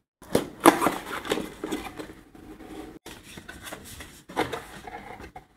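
A cardboard shipping box being handled and opened: irregular scraping and rustling of cardboard and paper, with a few sharper knocks, the loudest about half a second in and again around four and a half seconds.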